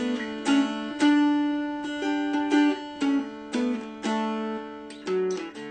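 Background music on a plucked string instrument, single notes picked roughly twice a second and left to ring.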